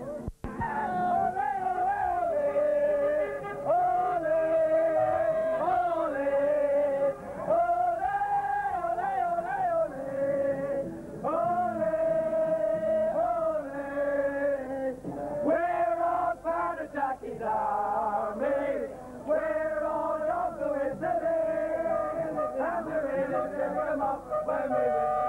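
Men singing a song, one clear melody carried in phrases of a couple of seconds with no break.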